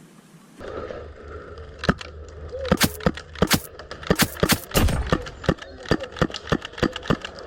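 Airsoft gunfire: a rapid, irregular string of sharp cracks, about four or five a second, starting about two seconds in.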